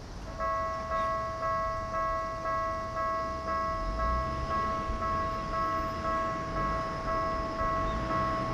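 Japanese railway level-crossing warning bell that starts about half a second in and rings in even strikes about twice a second. This signals that the crossing is closing for an approaching train.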